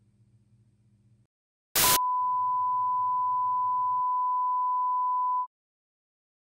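Television giving a short burst of static, then a steady high test-tone beep of the kind that goes with colour bars. The beep holds for about three and a half seconds and cuts off abruptly.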